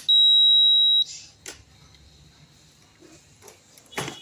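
Induction cooktop's newly replaced buzzer giving one loud, steady, high-pitched beep about a second long as the repaired board powers up, the sign that the buzzer now works. A few light clicks and a sharp knock near the end follow.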